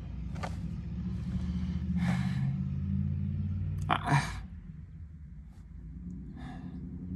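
Low steady rumble inside a car, with a few short breaths or sighs.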